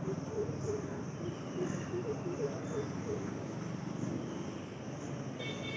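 Insects chirring in the background, a high buzz pulsing about twice a second, over a low hum, with a short high tone near the end.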